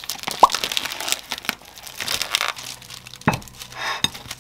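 Plastic wrap crinkling and tearing as it is peeled off a packaged meat tray, with many small crackles and clicks. There is a short squeak about half a second in and a sharp knock a little past three seconds.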